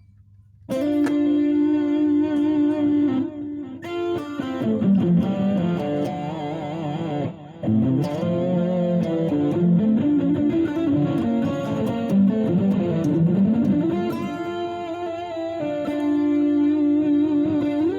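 Overdriven electric guitar played through a Zoom G1X On multi-effects pedal on a distortion and delay patch: a single-note melodic lead with long held notes, bends and vibrato, starting about a second in.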